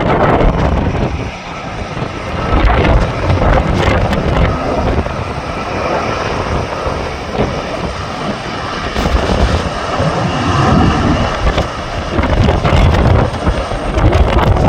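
Jet airliner engines running, mixed with heavy gusting wind buffeting the microphone.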